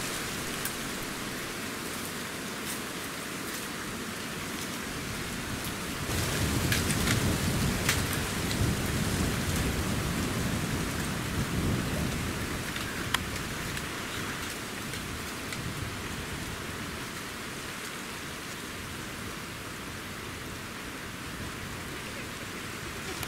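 Steady rushing noise with no clear pattern. It swells louder and deeper for several seconds from about six seconds in, with a few faint clicks.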